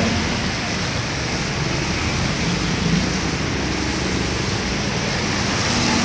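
Street traffic: a steady rushing noise of passing vehicles, with a faint low engine hum underneath.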